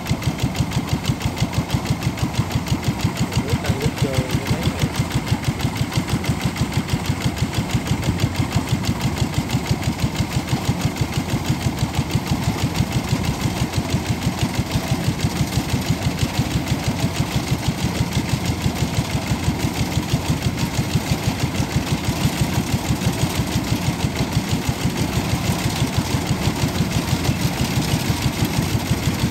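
Kubota DC-105X combine harvester running steadily while it cuts rice, its engine and threshing drive giving a regular pulse about four times a second.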